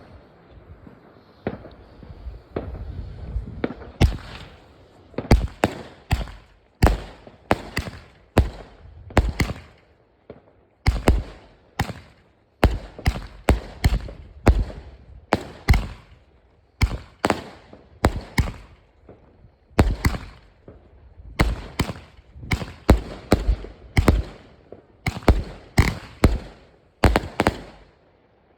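Fireworks going off in quick succession: dozens of sharp bangs, often two or three close together, each with a short echoing tail. The first few seconds are softer, and the bangs stop abruptly near the end.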